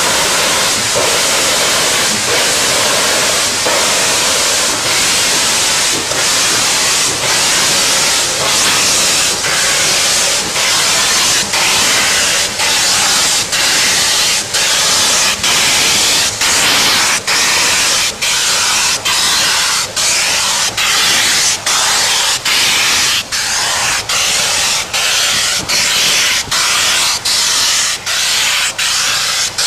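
Canadian Pacific 2816, a 4-6-4 Hudson steam locomotive, blasting steam from its open cylinder cocks as it works a train past: a loud continuous hiss pulsing in time with the piston strokes. The pulses come quicker as it goes on.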